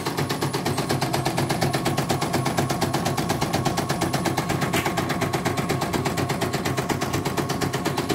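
CNY portable embroidery machine stitching at speed, its needle mechanism clattering in a rapid, even rhythm as it sews out a test design.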